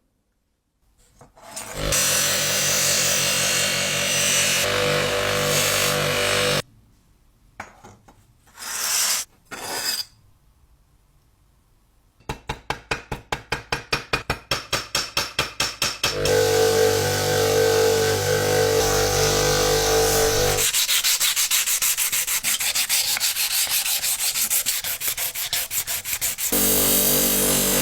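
Restoration work on metal and mechanical parts: stretches of a steady motor hum alternate with fast, even rubbing or sanding strokes, several a second. There is a short gap with a few brief scrapes partway through.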